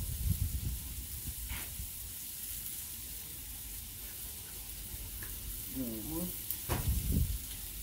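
Thick-cut porterhouse lamb chops sizzling on a flat-top griddle, a steady frying hiss, with a couple of sharp clicks partway through.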